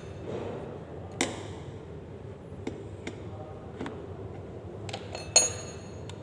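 Sharp metallic clinks and taps of small metal parts being handled: a loud one about a second in, a few light ticks in between, and a loud ringing clink near the end, over a steady low hum.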